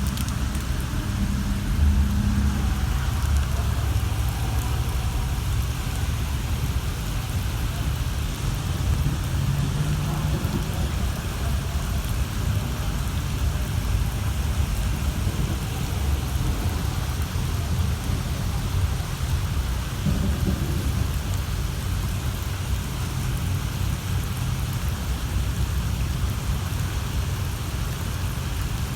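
Heavy rain pouring steadily in a thunderstorm, with a low rumble of thunder under it.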